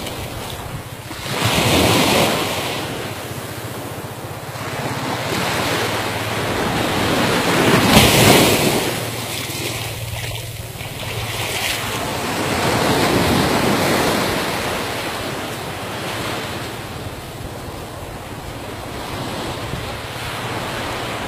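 Ocean surf washing up onto a sandy beach in slow swells that rise and fall every few seconds, loudest about eight seconds in, with wind on the microphone.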